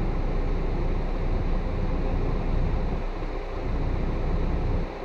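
Heavy truck's diesel engine running, heard from inside the cab as a steady deep rumble. The rumble eases briefly about three seconds in and again near the end.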